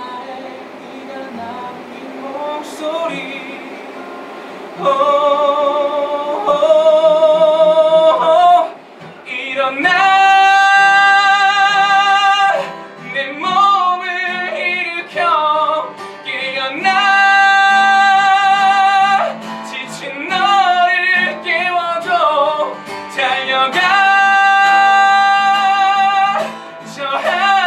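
A man singing a ballad live to acoustic guitar. He starts softly, then from about five seconds in sings loud, long-held notes with vibrato, in phrases with short breaks between them.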